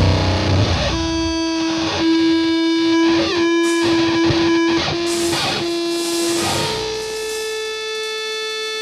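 Electric guitar ringing out alone with long held notes rich in overtones, as the bass and drums drop away about a second in; about two-thirds of the way through, the held note steps up in pitch and sustains.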